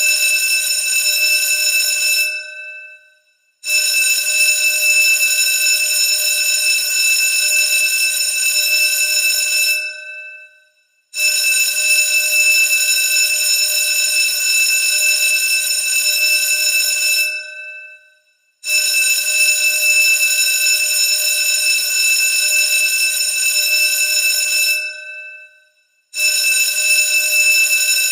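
School bell ringing steadily and loudly in repeated runs of about six seconds. Each run fades away, then after a brief silence the next begins abruptly; this happens four times.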